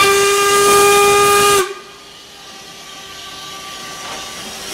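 Steam whistle of ČSD 464.202, a steam locomotive, blown in one loud steady blast of about a second and a half that cuts off abruptly. A faint trace of the whistle tone and a low hiss of steam follow.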